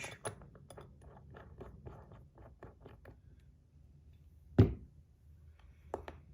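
A fidget spinner and its snap-on buttons being handled: a run of faint, rapid small clicks and ticks, then one sharp loud click about four and a half seconds in and two smaller clicks near the end.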